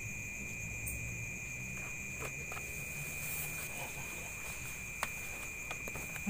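Night insects calling in a steady, unbroken high-pitched drone at two pitches, over a low rumble. A few light clicks and taps, the sharpest about five seconds in.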